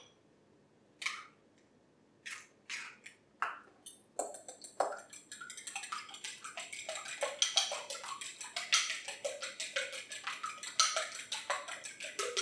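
A few separate light taps, then from about four seconds in a fork beating eggs in a glass bowl: a fast, steady clatter of the tines against the glass.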